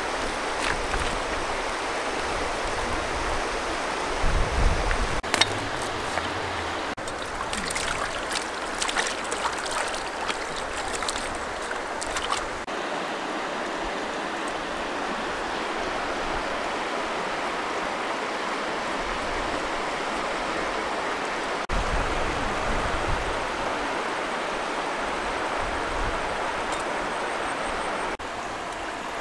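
Shallow river running over stones, a steady rush of water. Scattered sharp clicks and knocks come between about five and twelve seconds in.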